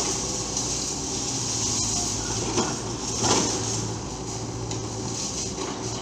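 Tracked excavators' diesel engines running steadily with hydraulic hiss while they work, with two louder knocks about halfway through.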